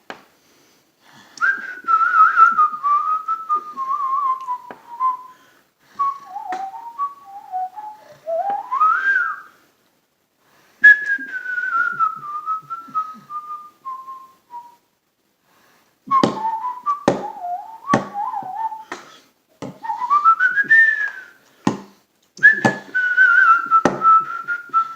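A person whistling a wandering tune in long falling phrases with a few upward swoops, with short pauses between phrases. Sharp taps or clicks come along with it, most thickly in the second half.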